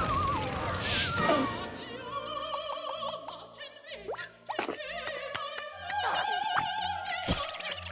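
Cartoon soundtrack: opera-style singing with a strong, wavering vibrato over music, broken by sharp clicks and sliding comic sound effects.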